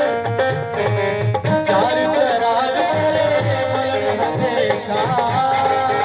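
Music with a pitched melody over steady hand-drum percussion.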